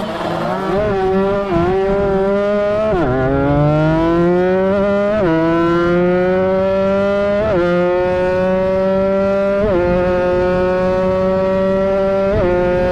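Kawasaki Ninja 150RR two-stroke engine accelerating through the gears under way. The pitch climbs in each gear and drops sharply at each upshift, about every two seconds, five times.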